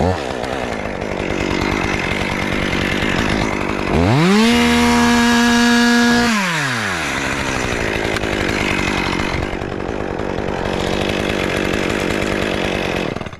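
Two-stroke chainsaw cutting through wood. About four seconds in, the engine revs freely up to high speed, holds for about two seconds and drops back as the saw returns to the cut.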